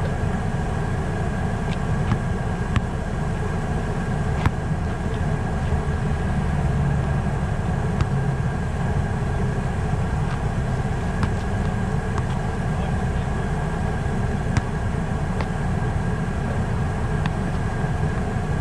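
Steady low rumble with a faint steady high tone, broken now and then by short sharp knocks of a basketball hitting the asphalt court.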